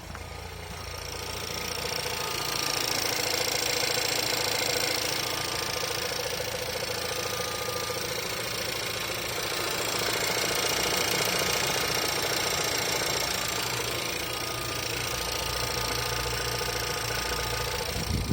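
Volkswagen Tiguan 1.4 TSI (CZDA) four-cylinder turbo petrol engine running cold, with a fast, steady rattling noise and a thin high whine over it. This is the extraneous noise the engine makes when cold. It grows louder about two seconds in.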